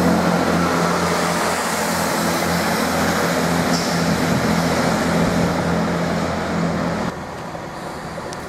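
A Class 165 Turbo diesel multiple unit running past, its underfloor diesel engines giving a steady low hum over the noise of the wheels. The sound drops away abruptly about seven seconds in.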